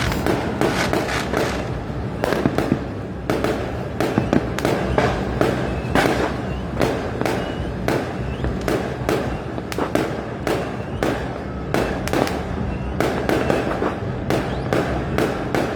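Many fireworks and firecrackers going off at once: a dense, irregular run of sharp bangs and crackles over a steady low rumble.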